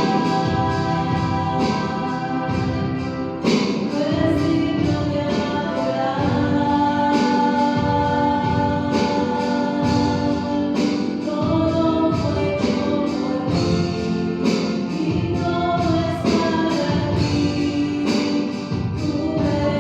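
Christian worship song: a choir singing over instrumental backing with a steady beat.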